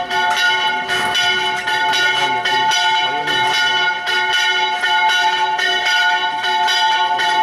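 Church bells ringing a rapid peal: quick, even strokes several times a second over a sustained, many-toned ring.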